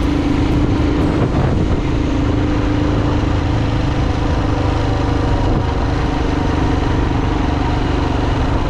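Royal Enfield Himalayan 450's single-cylinder engine running steadily at an even engine speed.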